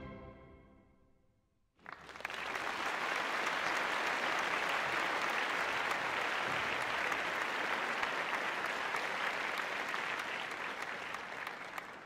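The last chord of the ballet music dies away. About two seconds in, an audience breaks into steady applause, which fades near the end.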